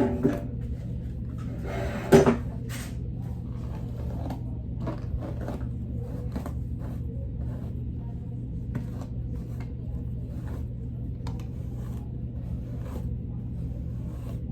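Scattered light clicks and taps of things being handled, with one louder knock about two seconds in, over a steady low hum.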